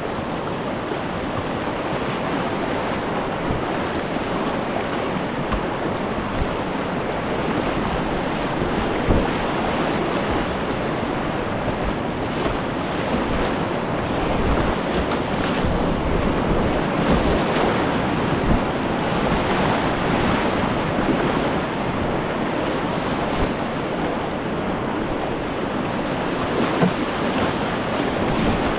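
Whitewater rapid rushing steadily close around a kayak, with wind buffeting the microphone and a couple of brief louder peaks.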